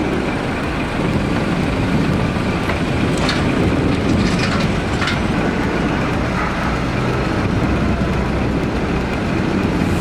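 Heavy timber truck's diesel engine running steadily, with a few faint knocks near the middle.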